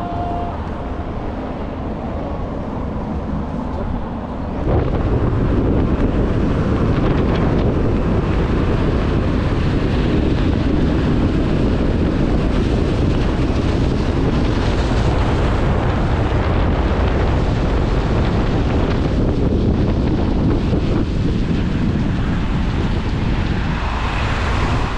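Steady rush of a car driving on a wet road, tyre and wind noise. It gets louder about five seconds in and then holds level.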